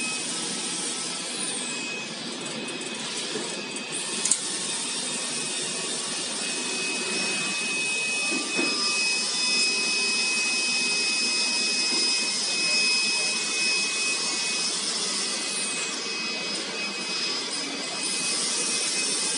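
Industrial laminating machinery running steadily: an even whirring noise with a thin, steady high whine. A single sharp click comes about four seconds in.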